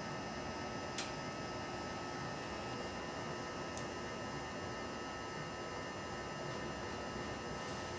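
BioLite CampStove burning wood, its built-in fan running with a steady hum over the hiss of the forced-draft fire. Two faint sharp ticks, about a second in and near four seconds.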